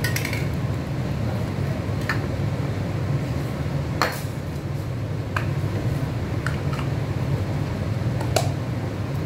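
Flower stems being handled and gathered into a bouquet by hand: scattered light clicks and rustles, about seven in all, over a steady low hum.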